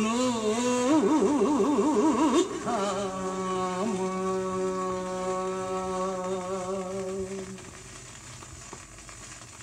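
Closing bars of a Turkish art song played from a 45 rpm vinyl single: a wavering melodic line, then a long held final chord that stops about 7.5 s in. After that only the record's faint surface hiss remains.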